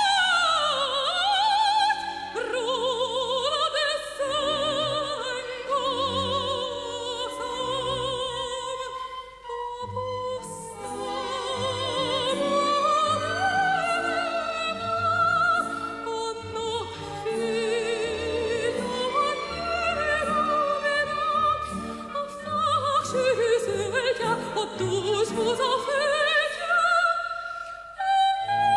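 Operatic soprano singing with heavy vibrato over instrumental accompaniment. A sweeping downward run opens the passage, and another comes about three-quarters of the way through.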